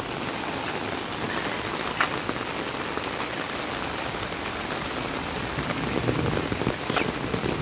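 Steady rain falling, with a few sharp drip ticks. A low rumble builds near the end.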